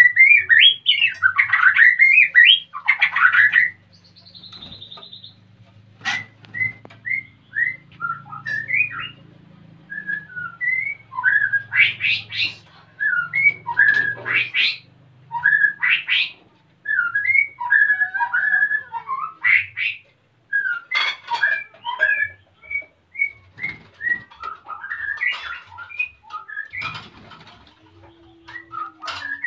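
White-rumped shama singing: loud, varied whistled phrases for the first few seconds, then a long run of short whistled notes and chirps with brief pauses between them. This is the song of a male in breeding condition, calling for a mate.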